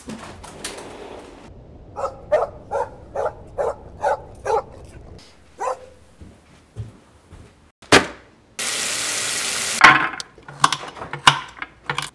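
A dog barking in a quick run of about eight barks, some three a second. A few seconds later comes a sharp click, then about a second of loud steady hiss, and then scattered knocks.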